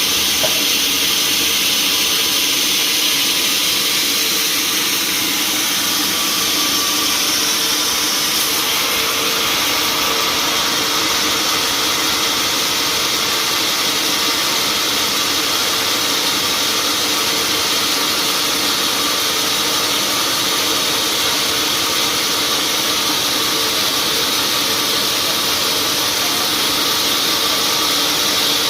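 Sawmill machinery running steadily: a loud, even mechanical noise with a constant hum under a strong hiss, which turns slightly brighter about eight seconds in.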